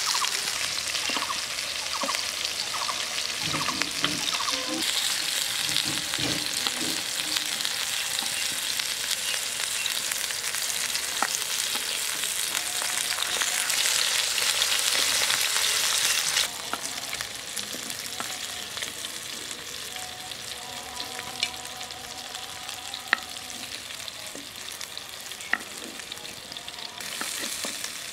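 Hilsa fish steaks sizzling as they fry in oil in a heavy black pan. The steady hiss drops suddenly to a quieter level about two-thirds of the way through, and a few light clicks sound over it.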